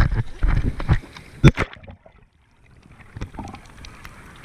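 Water splashing and sloshing around a camera held at the water's surface, with a sharp knock about a second and a half in. After that the camera is under water, and the sound goes muffled and faint.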